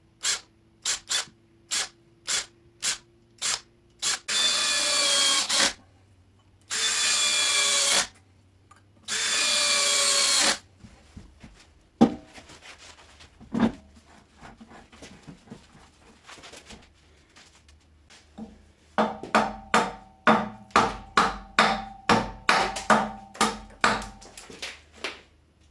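Cordless drill driving screws through a faceplate into a large wooden bowl blank: a string of short pulses, then three longer runs rising in pitch as each screw is driven home. A few knocks follow, then a rapid series of wooden mallet blows on the blank, about two or three a second, near the end.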